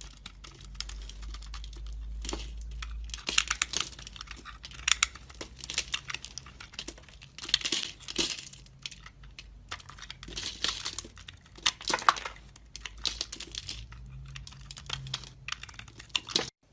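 Dry soap cubes being cut and crumbled, crisp crackling and crunching in repeated bursts, which cut off abruptly near the end.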